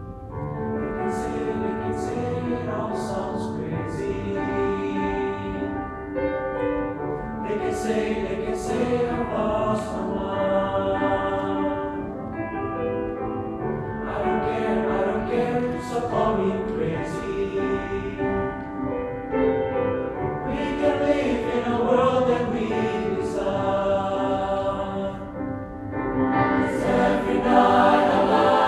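High-school choir singing in parts, holding sustained chords. It swells louder near the end.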